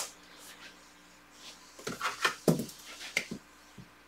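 Someone handling a marker at a whiteboard: a sharp click at the start, then a short cluster of clicks and knocks about two to three seconds in, one of them a low thump.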